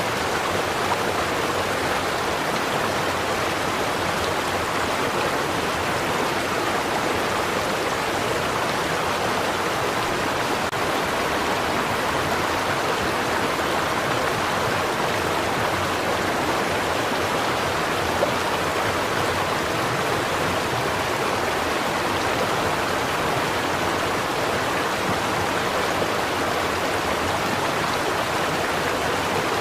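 A stream flowing steadily over rocks, an even rushing babble of water with no break.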